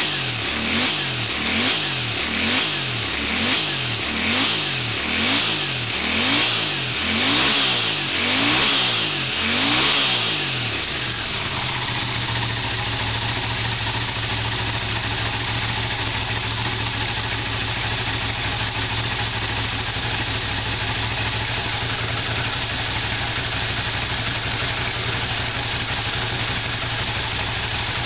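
Honda CX500 V-twin engine running on freshly installed carburetors: its revs rise and fall about once a second, each swell a little louder, then about eleven seconds in it settles to a steady idle.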